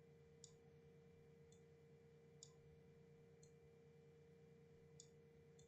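Near silence with about six faint, short clicks of a computer mouse, spaced roughly a second apart, over a faint steady hum.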